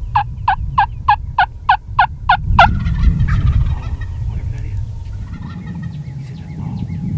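A run of about nine turkey yelps, evenly spaced at roughly three a second, stopping about two and a half seconds in.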